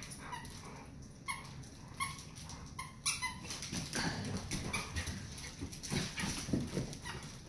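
Dog whimpering and whining: a few short, high squeaky whimpers, then longer, lower wavering whines from about halfway through.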